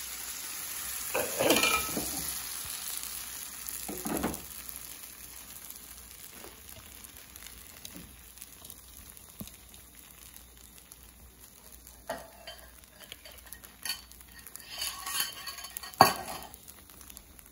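Thin neer dosa batter of rice flour sizzling softly on a hot non-stick crepe pan, the sizzle fading over the first few seconds. Scattered knocks and clinks of utensils against the pan sound about a second in, around four seconds, and several times near the end.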